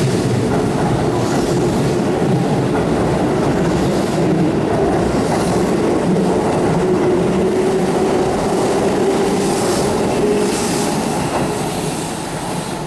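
Keihan 8000 series limited express train pulling out of the station, its motors humming and wheels clicking over the rail joints as it gathers speed. The sound fades near the end as the last car clears the platform.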